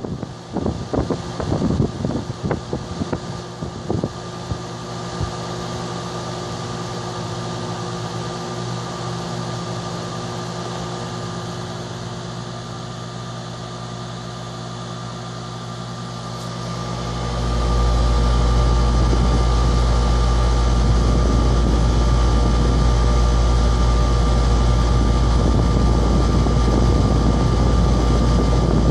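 Air conditioner condenser unit running with a steady hum made of several fixed tones. The first few seconds hold irregular low rumbles. About two-thirds of the way through, a deep low rumble sets in and the sound grows markedly louder.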